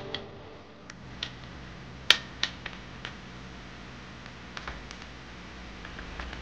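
Scattered sharp clicks and taps from hands handling small plastic camera accessories and a USB charging cable, the loudest about two seconds in.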